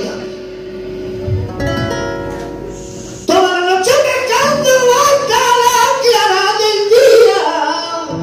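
A man singing a worship song to his own strummed acoustic guitar. The guitar plays alone for about three seconds, then his voice comes in loudly and carries on to the end.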